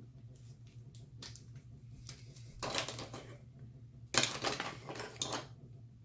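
Bubble wrap being unwrapped by hand: a few light clicks, then two bursts of crinkling plastic, about three and four seconds in.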